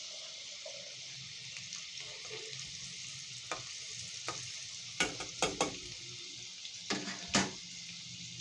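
Besan-coated potato chips deep-frying in hot ghee in a metal pan, a steady sizzling hiss. In the second half, several sharp clicks and knocks come from a spoon working among the chips against the pan.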